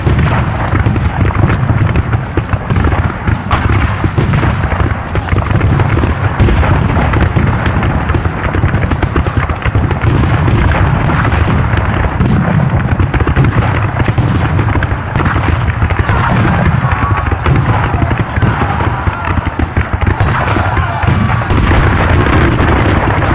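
Battle sound effect of dense, continuous gunfire mixed with cannon booms and explosions, keeping up a steady loud din with no pause.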